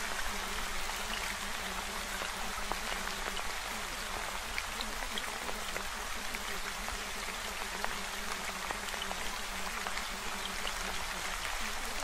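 Steady water sound: an even rushing hiss with scattered small drip-like ticks. It is the water-sound bed in which subliminal affirmations are layered.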